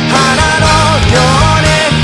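Punk rock band playing electric guitar, bass guitar and a Tama drum kit, with a lead voice singing a wavering melody over them.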